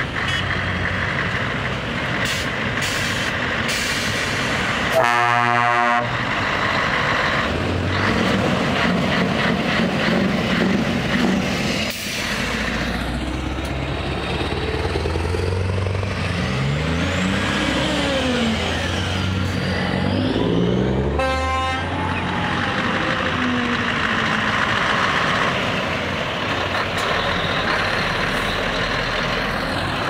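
Heavy trucks driving slowly past, their diesel engines running and revving, with the pitch rising and falling as they pull away through the gears. A truck air horn sounds twice: a blast about five seconds in and a shorter one about twenty-one seconds in.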